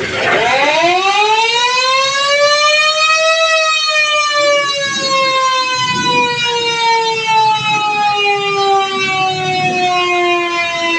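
Fire truck siren sounding one long wail: it rises in pitch over the first three seconds or so, then slowly falls.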